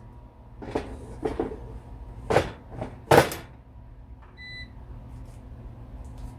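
Knocks and clatter of an air fryer basket and chicken pieces being handled, about five separate clunks, then one short electronic beep from the appliance.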